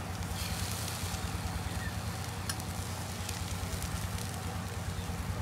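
Meat sizzling and charcoal crackling on a wire grill over a charcoal brazier, over a steady low hum, with a couple of sharp ticks about halfway through.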